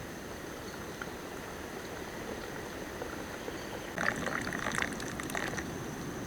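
Liquid bubbling steadily in a pot over a campfire, with a short run of light metallic clinks about four seconds in.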